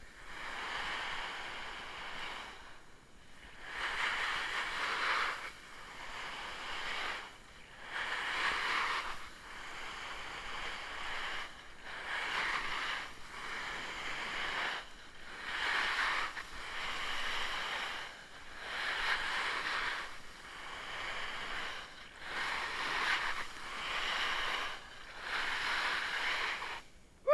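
Snowboard sliding on snow in a series of turns: the edge hisses and scrapes in repeated swells, each lasting a second or two, with short lulls in between.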